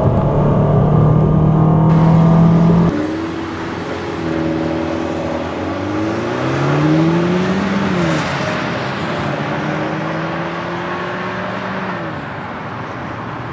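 2014 Fiat 500L's 1.4-litre turbocharged four-cylinder engine at full throttle in a 0-60 mph run, first pulling at a steady pitch. About three seconds in the sound drops in level and a hiss of wind and road noise comes in, while the engine note climbs and falls twice as the dual-clutch gearbox shifts up.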